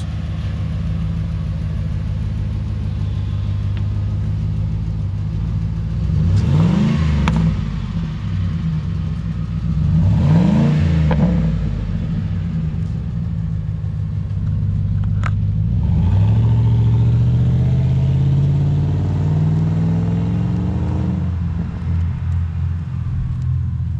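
Ford F-150 pickup engine idling, revved in two quick blips about six and ten seconds in, then revved up more slowly and held for several seconds before settling back toward idle. A single sharp click sounds about fifteen seconds in.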